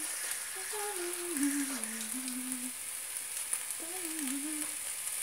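Chicken pieces sizzling in a frying pan as their cooking water boils off and they begin to brown: a steady crackling hiss. A low wavering tone comes and goes over it three times.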